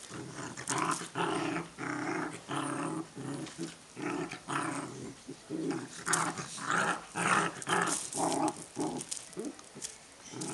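Dogs growling at play while wrestling: short growls one after another with brief gaps, a play-fight rather than a real one.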